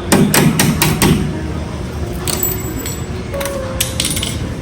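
Metal patio door handle and lock hardware being handled and fitted: a quick run of sharp metallic clicks and knocks in the first second, then a few scattered clicks later on.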